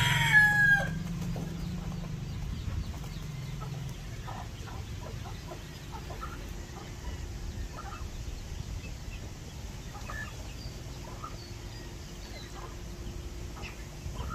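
A rooster crows once, loud, right at the start, the call falling in pitch as it ends. After it come scattered faint chirps and clucks from the flock over a low rumble that fades out by about four seconds in.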